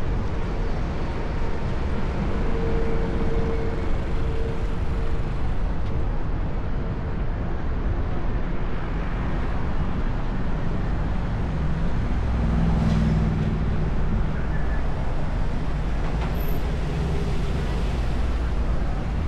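City street traffic noise: motor vehicles such as cars and buses running and passing, with a steady rush of noise and a louder engine hum about twelve seconds in.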